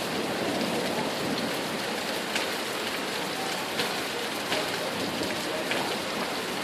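Heavy rain pouring down steadily, with a few sharp louder drops striking close by.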